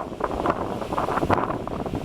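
Strong wind buffeting the microphone in rapid, irregular gusts.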